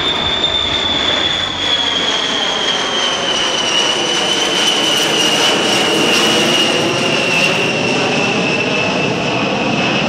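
A USAF B-52H Stratofortress's eight TF33 turbofan engines in a flyover, loud and steady, with a high whine that slowly drops in pitch as the bomber passes overhead and moves away.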